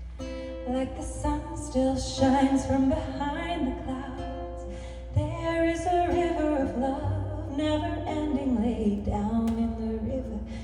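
A woman singing a melody over plucked acoustic guitar.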